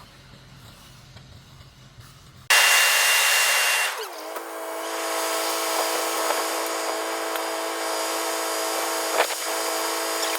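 Quiet until about two and a half seconds in, then a sudden loud hiss lasting about a second and a half, after which a motor-driven machine runs at a steady pitch on the concrete pour.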